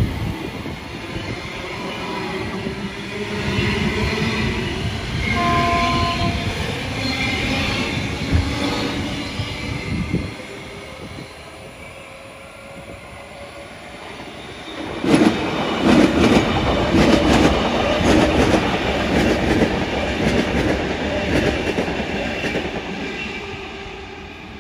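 Electric passenger trains passing. First a Queensland Rail New Generation Rollingstock train runs past close by, with a short two-note toot about five seconds in. After a quieter stretch, another train passes from about 15 s in, its wheels clattering rapidly over the rails.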